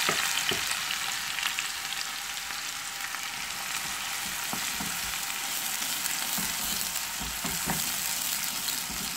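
Freshly chopped onions sizzling in hot oil with cumin seeds, the hiss easing a little over the first few seconds. From about halfway, a wooden spatula stirs them, adding soft scrapes and knocks against the pan.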